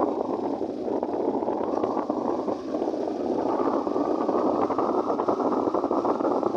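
Steady rushing noise of wind and engine on the microphone of a moving vehicle travelling along a road.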